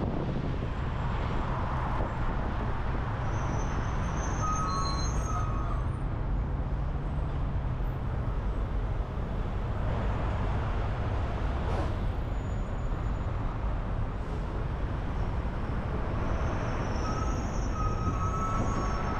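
Steady road noise of a car driving at highway speed: a low rumble of tyres and wind. Faint thin whistling tones come in briefly about four seconds in and again near the end.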